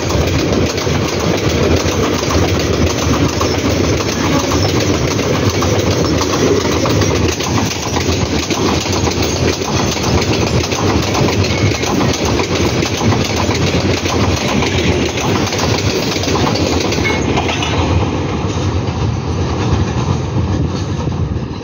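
Container freight train's loaded flat wagons rolling past at close range: the wheels running over the rails make a loud, steady rumble.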